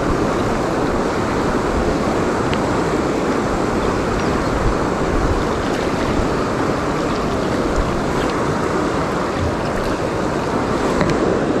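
Steady rush of a mountain river's current flowing past, with a few faint small ticks over it.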